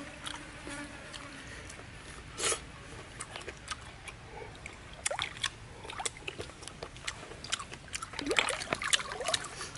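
Close-up sounds of a person eating cooked snails: many short clicks and wet smacks from the shells, the picking stick and the mouth, busiest in the second half.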